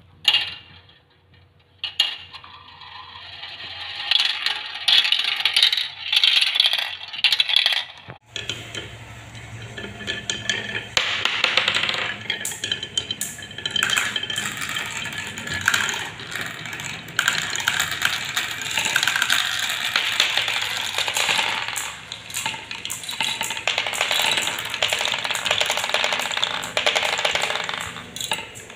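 Marbles rolling and clattering down a plastic marble-run track, then, after a sudden change about eight seconds in, many marbles rattling almost without a break down wooden chutes.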